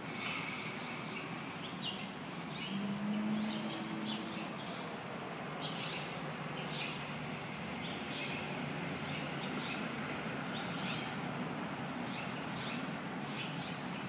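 Small songbirds chirping repeatedly, short high calls scattered through, over a steady background hum, with a brief low drone about three seconds in.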